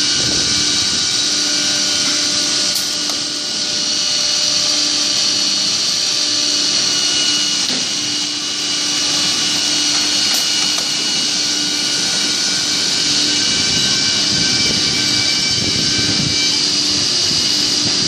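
CNC router spindle running at high speed and cutting into a wooden cabinet panel: a steady high whine and hiss with a few fixed tones underneath, the level dipping briefly twice.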